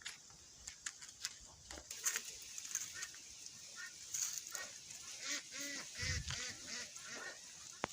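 Farm poultry calling: a run of short, repeated calls that starts about three seconds in, over scattered small clicks and a steady high background hiss.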